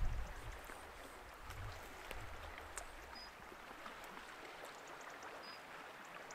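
Faint, steady outdoor hiss of a light breeze and the sea below, with a few soft clicks and three brief, faint high peeps spaced a couple of seconds apart.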